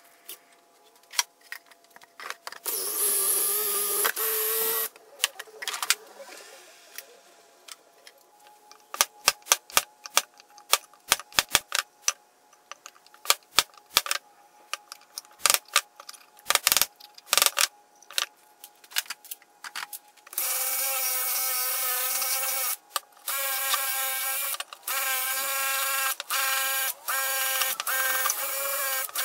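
Cordless drill spinning a wire cup brush against a small metal engine part: a short burst of running a few seconds in, then a longer spell of steady running with brief gaps over the last third. In between, a scatter of sharp clicks and clinks as the metal parts are handled.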